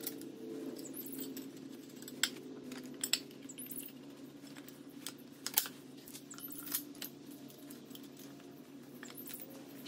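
Steel drawbar pieces and loose bolts and washers clinking as they are handled and fitted together: a handful of short sharp metallic clinks spread through, the loudest about three and five and a half seconds in, over a faint steady hum.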